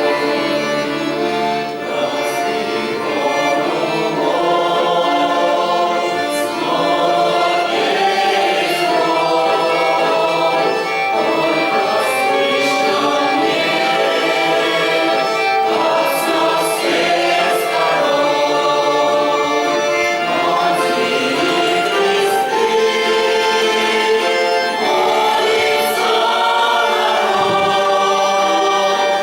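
Russian folk choir singing, many voices together at a steady full level.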